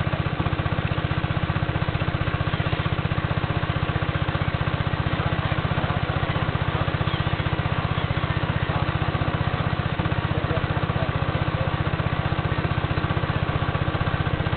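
Small boat motor running steadily at constant speed, a fast, even chugging with no change in pace.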